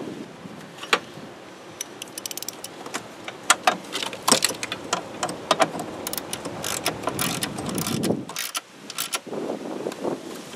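Hand socket ratchet clicking in quick runs as mounting bolts are driven in, with scattered metallic taps and clinks of the tool against the bolts.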